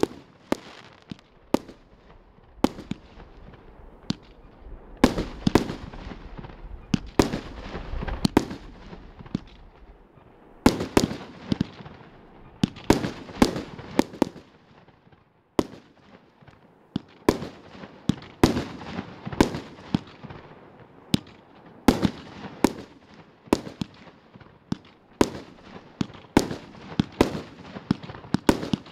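Pyrotrade 'Venus' firework battery firing shot after shot: sharp bangs of the launches and aerial bursts, about one to two a second, each trailed by a brief fading hiss.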